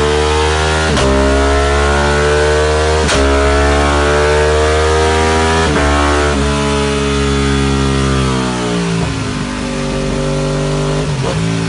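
Ducati Panigale V-twin engine through a Termignoni exhaust under full throttle on a dyno, revving hard up through the gears. Its pitch climbs and breaks with a sharp crack at each of three upshifts, then the throttle closes about eight seconds in and the revs fall away.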